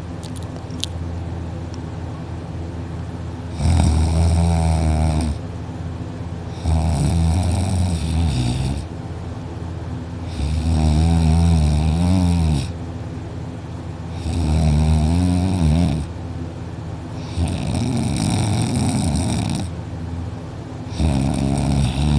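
A person snoring loudly in sleep: six long snores, one about every three and a half seconds, over a steady low hum between them.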